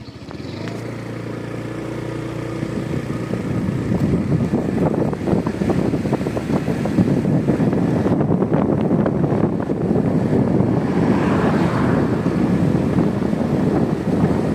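Motorcycle engine pulling away and gathering speed, its sound building over the first few seconds, then wind buffeting the microphone heavily over the engine as the bike rides on at speed.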